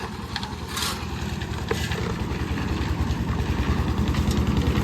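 Engine running with a steady low throb, growing gradually louder.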